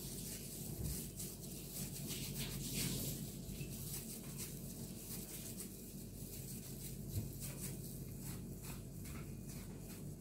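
Thin plastic food-prep gloves crinkling and mashed potato squishing as hands knead and shape it, in soft irregular rustles, over a steady low hum.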